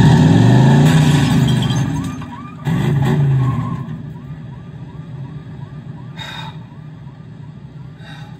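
A vehicle siren wailing in two long rising-and-falling sweeps, the first loud from the start and the second a little under three seconds in, then dropping to a fainter level, heard through a television's speakers.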